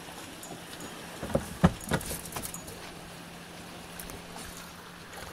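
Sharp knocks and clicks of gear being handled on a small fishing boat, several bunched between one and two and a half seconds in, with the loudest about one and a half seconds in. A steady low hum runs underneath.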